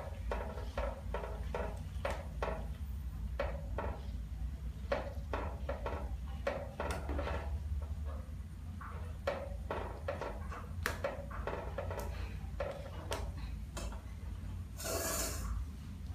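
Metal ladle stirring soup in an aluminium pot: repeated short scrapes and clinks of the ladle against the pot over a steady low hum, with a brief rushing noise near the end.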